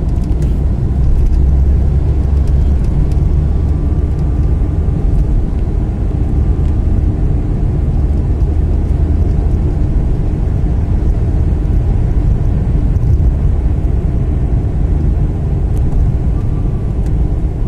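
Steady low rumble of road traffic heard from a vehicle driving along a busy road, with engine and road noise and no distinct single event.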